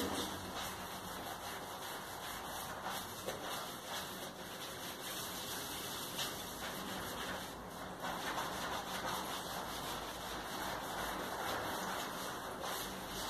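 Sponge scrubbing a soapy stone kitchen countertop: a steady run of irregular rubbing strokes.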